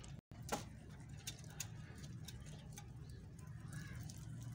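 Several domestic rabbits tugging at and chewing a bundle of fresh leafy greens: scattered small clicks, ticks and leaf rustles over a low steady hum.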